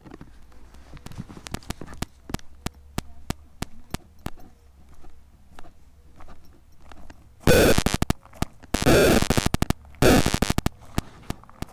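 Footsteps crunching on a gravel path: a regular run of sharp crunches, about three a second, with three louder bursts of dense crunching in the second half.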